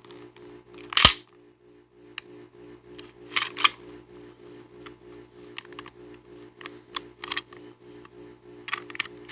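Sharp metallic clicks of an all-steel PHP MV 9 mm pistol's parts being pushed and fitted together during reassembly: one loud click about a second in, a quick double click a few seconds later, and lighter clicks near the end.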